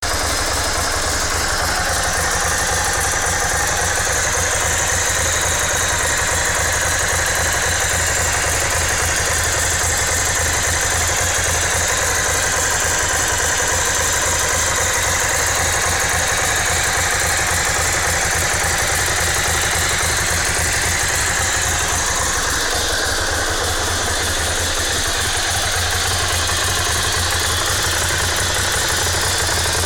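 Ducati S2R 1000's air-cooled L-twin engine idling steadily with an odd mechanical noise on top, which the owner cannot place. The upper part of the sound changes character a little past twenty seconds in.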